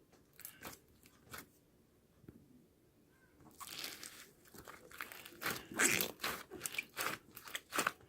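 Plastic packaging crinkling and tearing as a slime package is unwrapped by hand. A few isolated clicks come first, then about halfway through a dense run of crinkling with sharp crackles.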